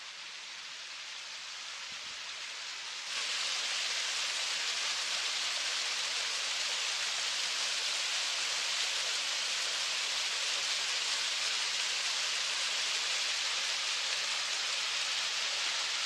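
Small mountain stream rushing and splashing down rocky cascades: a steady hiss of running water that builds over the first few seconds and then jumps louder about three seconds in.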